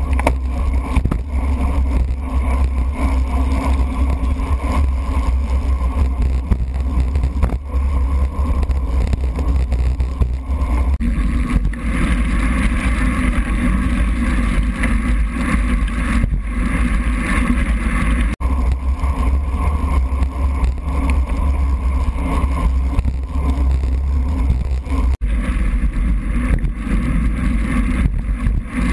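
Steady, muffled rumble of wind and wet-road noise heard through a sealed waterproof camera housing on a racing bicycle moving at speed. Its texture changes abruptly a few times.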